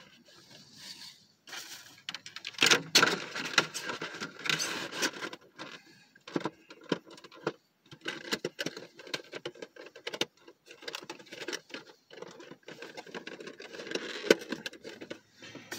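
Handling of a cardboard Funko Pop box and the small pin packed with it: irregular rustling, crinkling and small clicks of cardboard and plastic.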